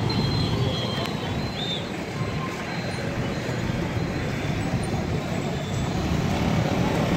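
Busy road traffic: a steady rumble of cars, buses and motorbikes moving through a junction, with a few faint high tones over it.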